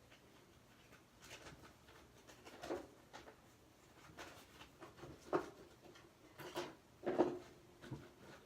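Scattered, irregular rustles and light knocks of small objects being handled, such as the packaging and containers of a slime order.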